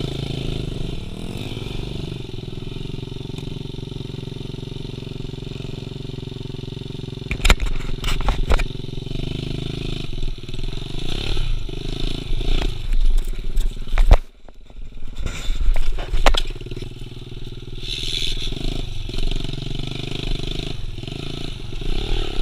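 Pit bike engine running at steady low revs, then revving up and down unevenly as the bike rides over rough dirt and logs. Sharp knocks and clatters come from the bike hitting the ground; the loudest is a bang about fourteen seconds in, followed by a brief drop in the engine sound.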